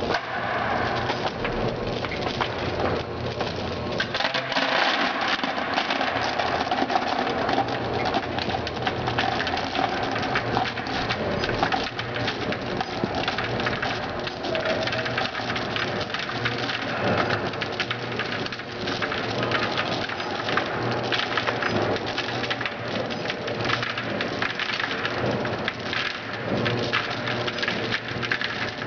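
Pieces of chewing gum rattling against each other and the stainless steel walls of an industrial feeder's hopper as the feeder runs: a dense, continuous patter of small clicks over a steady low machine hum.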